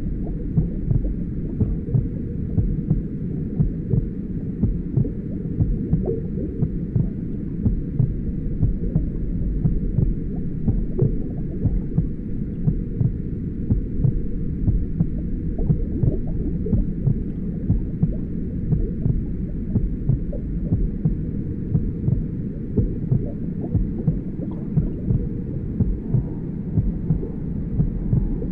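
Simulated womb sound: a slow, steady resting heartbeat, about one beat every 0.8 seconds, muffled as if underwater, over a constant low rumble of filtered white noise.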